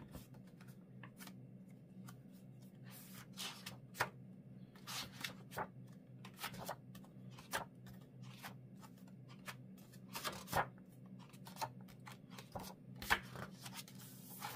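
Pages of a sketchbook being leafed through and handled: a run of short, irregular paper rustles and flicks.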